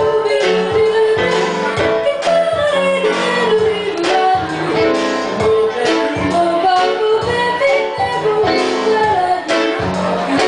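Live music: a woman singing a melody over instrumental accompaniment with a steady beat.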